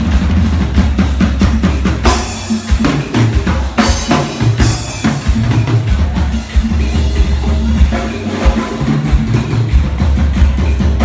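Amplified live band playing: drum kit with kick and snare over bass guitar and keyboards, with bright crashes about two seconds and four seconds in.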